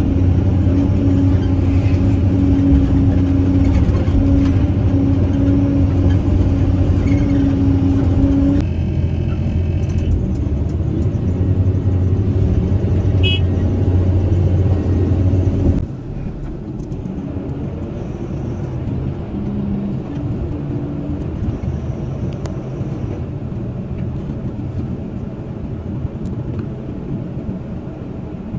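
Caterpillar 320C hydraulic excavator's diesel engine and hydraulics working under load as it swings and dumps a bucket of soil, heard from the operator's cab: a steady hum with a whine over it. The sound drops sharply in level about halfway through.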